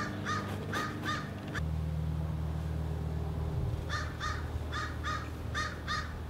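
A crow cawing: four quick caws, a pause of about two seconds, then six more. Underneath runs a steady low hum that shifts in pitch about a second and a half in.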